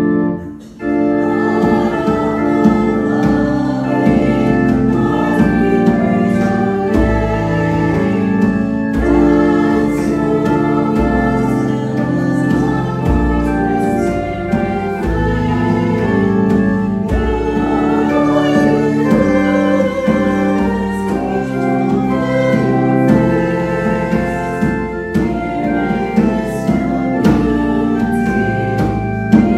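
A hymn sung with keyboard accompaniment in held chords, after a brief pause just after the start.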